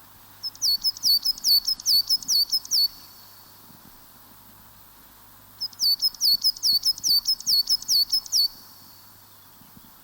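A small songbird singing two phrases a few seconds apart, each a rapid run of high, downward-slurred notes, about five a second.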